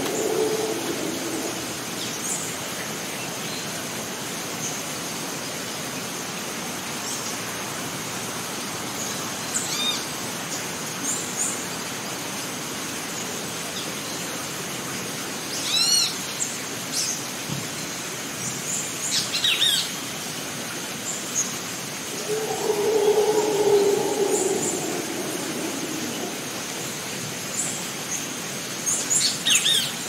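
Rainforest ambience: a steady rushing hiss with a thin, high, unbroken whine over it. Birds call here and there: a quick run of repeated chirping notes about halfway through, and more chirps later. Near the end a low, drawn-out call rises and fades over several seconds, louder than the rest.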